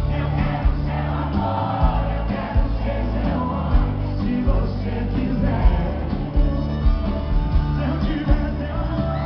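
Live sertanejo band music with singing over a steady bass and drum beat.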